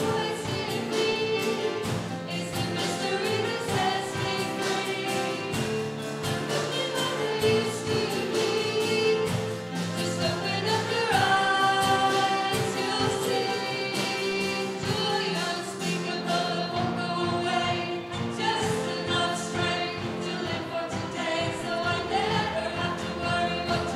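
A worship hymn sung with instrumental accompaniment, the voices carrying the melody over a steady band backing.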